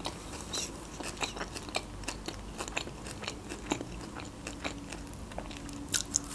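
Close-up chewing and mouth sounds: a steady run of small wet clicks and soft crunches as food is chewed, with a louder click about six seconds in.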